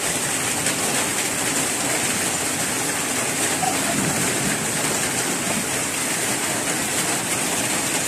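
Heavy downpour, a steady even hiss of rain falling on standing floodwater and foliage.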